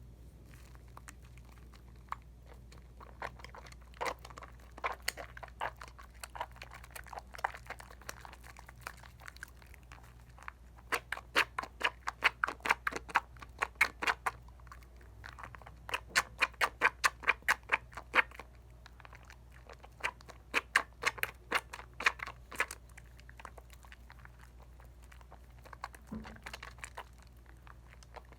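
Soap lather from a Dial coconut bar being worked between wet hands, a crackling squish in runs of quick clicks, several a second, loudest through the middle stretch.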